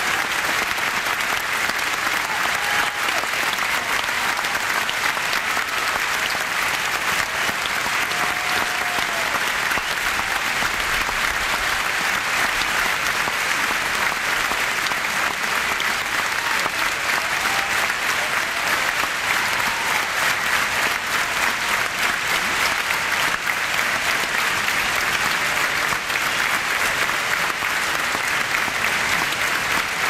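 Large stadium crowd applauding steadily, with faint scattered cheers.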